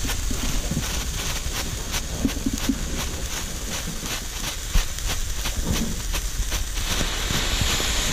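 Small ground fireworks burning: a steady hiss with irregular sharp crackles and pops.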